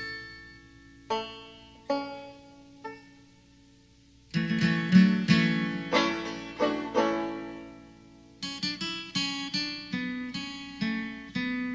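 Background music of a plucked banjo: a few slow single notes, then fast picking from about four seconds in.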